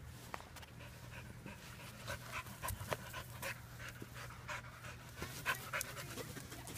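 A puppy panting in short, quick breaths, about two or three a second, with its nose down among rocks.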